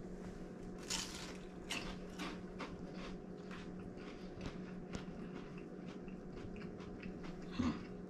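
A bite into a crisp-fried lumpia spring roll crunches sharply about a second in. It is followed by a run of smaller crunches as it is chewed, over a steady low room hum, with one brief louder sound near the end.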